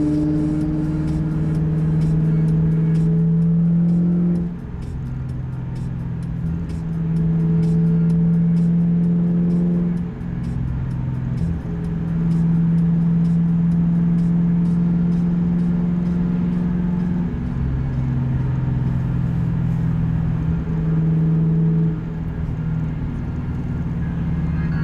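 A 2005 Pontiac GTO's LS2 V8, heard from inside the cabin while driving, through a Spintech exhaust with Kooks long-tube headers. It gives a steady, deep exhaust drone that dips and comes back several times as the throttle changes.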